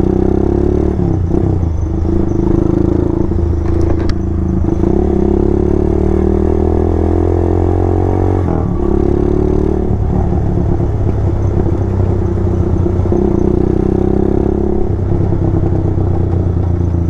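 Motorstar Z200 motorcycle (a custom classic build) running under way through its exhaust pipe. The engine rises in pitch from about six seconds in, drops sharply at a gear change about two seconds later, and then runs steadily.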